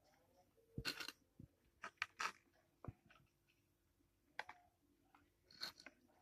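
Faint handling noises: scattered short clicks and crisp rustles as a paper tray on a digital scale is touched and something is set on it.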